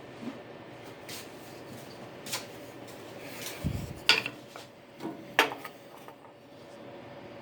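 Scattered clicks and knocks of small hard objects being handled and set down, with a dull thump near the middle and the two sharpest clicks in the second half, over a faint steady hum.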